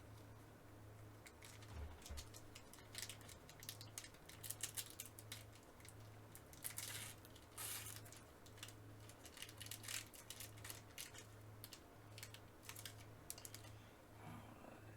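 Faint clicking and rustling of trading cards being handled, with a couple of longer crinkling tears about seven seconds in as a foil card pack is opened.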